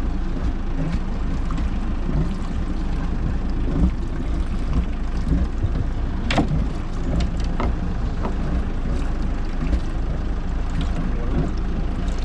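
Steady low rumble of a small fishing boat at sea, with wind on the microphone. A few sharp clicks and knocks come through about halfway in.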